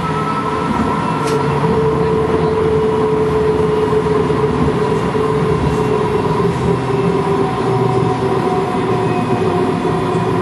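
Streetcar running along its track, heard from inside the car: a steady rolling rumble with whining tones over it, one of which slowly falls in pitch.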